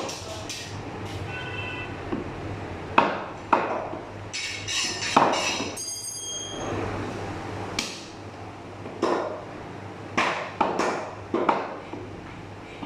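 Heavy meat cleaver chopping mutton on a wooden chopping block: about ten sharp chops at uneven intervals. Near the middle there are a few ringing metallic clinks.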